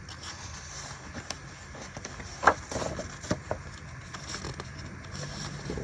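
Faint handling noise: a few short clicks and light rustling over a low steady hum, with the clearest click about two and a half seconds in.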